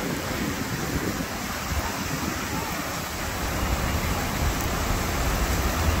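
Man-made waterfall in a pocket park rushing steadily, a dense even hiss of falling water that grows slightly louder toward the end.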